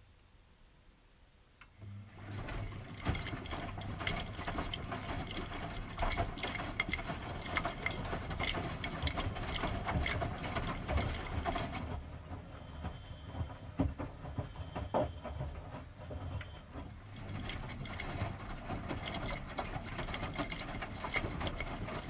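Miele front-loading washing machine tumbling wet laundry in the wash: the drum starts turning about two seconds in, with motor hum and water and clothes sloshing and thudding inside. The tumbling eases off for a few seconds in the middle and then picks up again.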